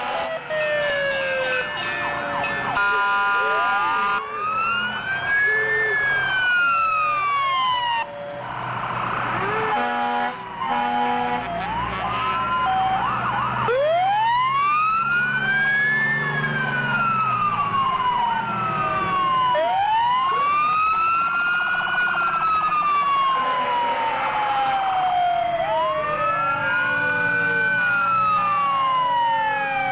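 Several fire engine sirens wailing at once, each climbing in pitch and then sliding slowly back down, overlapping one another. Short steady horn blasts sound about three seconds in and again around ten seconds in.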